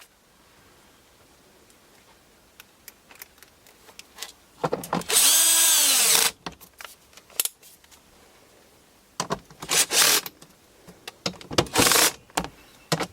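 Power drill driving hex-head screws into a washing machine door assembly: one run of about a second and a half whose pitch drops as the screw tightens, then clicks and two shorter bursts later on.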